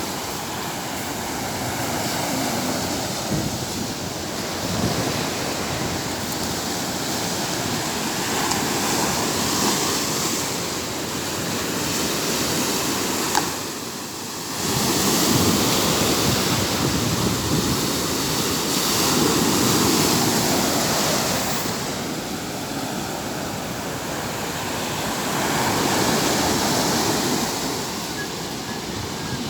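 Sea waves breaking and washing up a beach, the rush swelling and easing every few seconds. There is a short lull about halfway through, then a louder surge.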